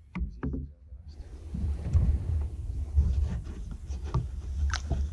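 Low wind rumble buffeting the microphone, growing stronger after about a second, with scattered knocks and rustles of handling as a small pike is lifted from the water into a kayak.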